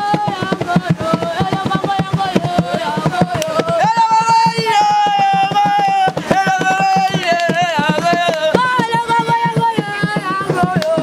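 A song: voices singing long, wavering notes over a quick, steady percussion beat.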